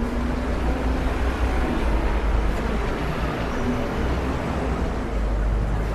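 Street traffic noise with a heavy low rumble, swelling slightly in the middle as a vehicle passes close by.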